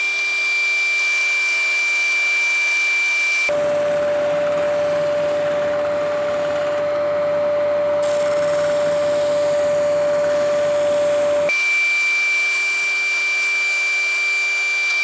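Vacuum cleaner drawing dust from a drill-press drum sander's dust box, running with a steady high whine. For about eight seconds in the middle the sound switches abruptly to a lower, rougher machine noise with a steady hum: the drill press spinning the sanding drum while a board is sanded against it.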